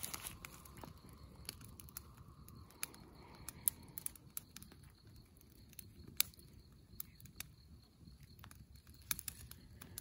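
Irregular sharp crackles and snaps of small dry sticks at a young wood campfire, the kindling burning while twigs are snapped and fed in by hand.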